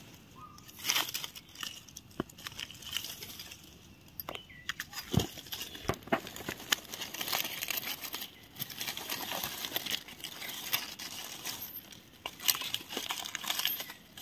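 Dry leaf litter rustling and crinkling in irregular bursts, with scattered light snaps and clicks, as hands brush through it to pick wild mushrooms.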